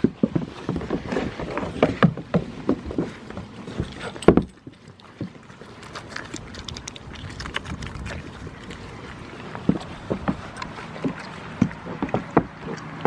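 Goats jostling close around the microphone: irregular knocks, scuffs and bumps of hooves and muzzles on a wooden board and against the camera, with a louder thump about four seconds in.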